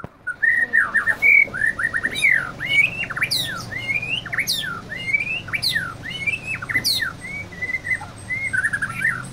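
A male white-rumped shama singing a fast, varied run of quick down-slurred whistles and trills that mimics canary song. Some notes sweep very high.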